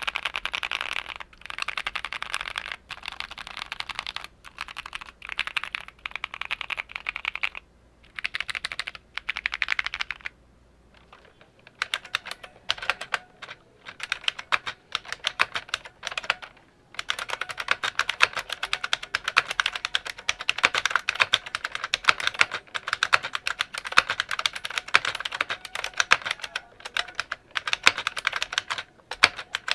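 Typing on a modded Keychron Q1 with Durock T1 POM Sunflower tactile switches, then, after a short pause about ten seconds in, typing on an IBM Model M with buckling-spring switches, a denser run of clicks.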